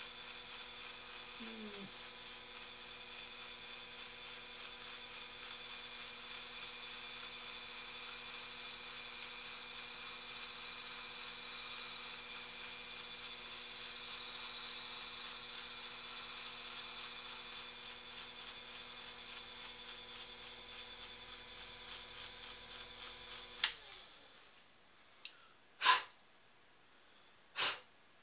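Small bench-top metal lathe running, a steady motor hum with a high whine that grows louder for a stretch in the middle. About 24 seconds in the motor is switched off and winds down, and a few sharp clicks follow.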